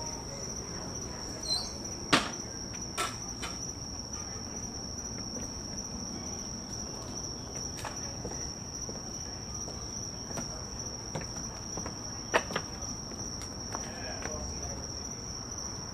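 Acorns dropping out of an oak tree and knocking on a wooden deck: single sharp knocks at irregular intervals, the loudest about two seconds in and a quick pair around twelve seconds in. Beneath them, night insects trill steadily on one high note.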